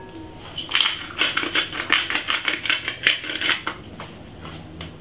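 Dry seasoning being pinched by hand from a plastic pouch and sprinkled over steak in a glass bowl: a rapid run of crackling clicks starting about a second in and lasting about three seconds.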